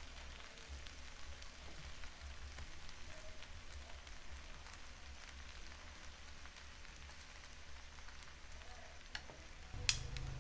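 Rice vermicelli with vegetables and pork sizzling faintly in a frying pan as it is tossed with chopsticks, with small crackles throughout. A sharp click comes near the end.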